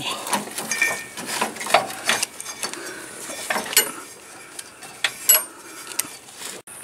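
Irregular metallic clicks and knocks from the drive belt being worked off the electric PTO clutch pulley under a John Deere LA145 riding mower, the pulley turned and handled by hand.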